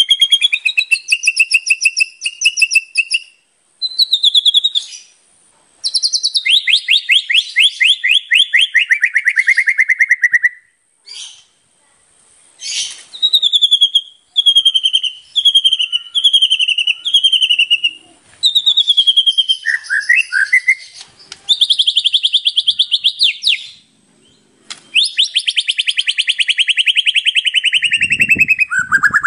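White-rumped shama singing loudly in a varied run of phrases: fast trills that slide down in pitch, a string of five or six repeated whistled notes, and long rapid trills, with short pauses between phrases.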